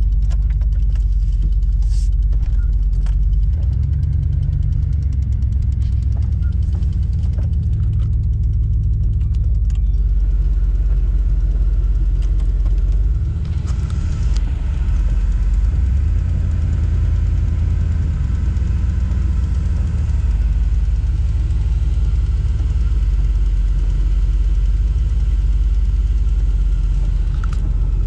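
Car or truck engine running steadily and loudly, its note shifting a few seconds in and again about halfway through as the vehicle is moved.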